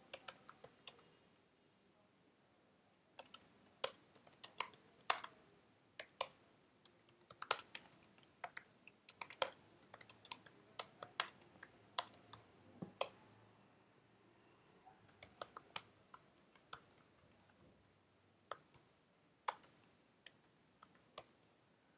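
Computer keyboard being typed on: faint key clicks in irregular bursts with short pauses between them.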